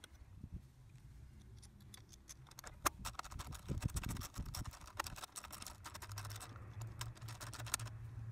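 Socket ratchet clicking in short irregular runs as a bolt is turned under a Honda Elite 250 scooter's transmission case. The clicking starts about three seconds in.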